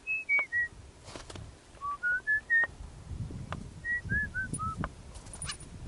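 Short, clear whistled notes in three runs: three falling notes, then four rising, then four falling. A few sharp clicks and a soft low rumble come in between.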